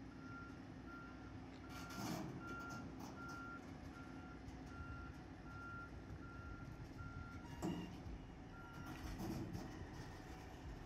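Reversing alarm on a new Oshkosh fire truck beeping about twice a second over its running diesel engine while it backs up under a guide's hand signals; the beeping stops about three quarters of the way in, with one last beep a second later. A few dull knocks are heard over the engine.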